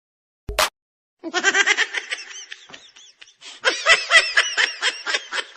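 A short click, then laughter in rapid pulses: one run, a brief lull, and a louder run starting about halfway through.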